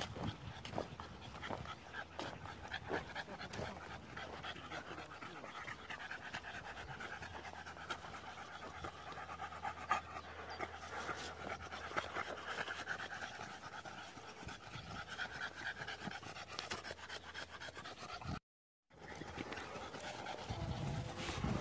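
A dog panting rapidly and steadily close to the microphone while trotting along on a walk. The sound cuts out completely for a moment near the end.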